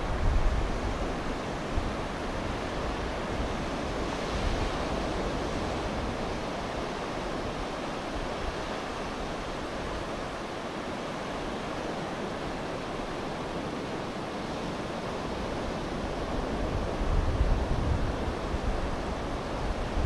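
Atlantic ocean surf at high tide: waves breaking and washing ashore in a steady rush of noise, growing a little louder about seventeen seconds in. Deep rumbles of wind buffet the microphone now and then.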